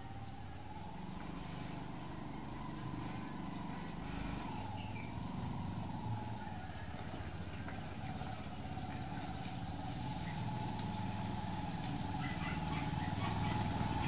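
Motorcycle tricycle's single-cylinder motorcycle engine running steadily, getting gradually louder as it comes closer.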